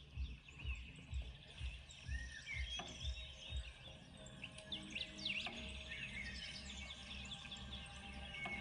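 Birds chirping over quiet background music that has a soft low beat for the first few seconds, then a steady low hum.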